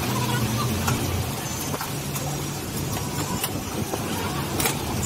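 Steady low hum of road traffic and vehicle engines, with a few sharp clicks of a metal ladle and spatula against an iron omelette pan.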